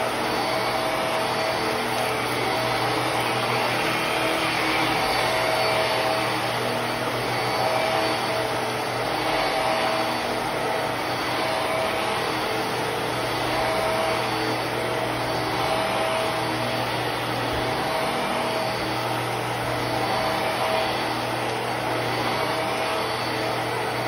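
Hart Pet Grade upright vacuum running steadily as it is pushed over carpet: an even rush of suction air with a constant motor tone over it.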